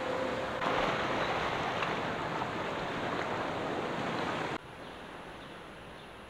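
Sea waves washing on the shore, a steady rushing hiss. About four and a half seconds in it cuts off suddenly to a quieter, steady hiss.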